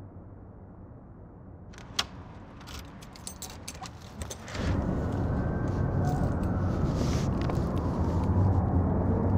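Keys jangling and clicking in a front-door deadbolt from about two seconds in, then the door opens and steady traffic noise from outside comes in, much louder, with a low hum.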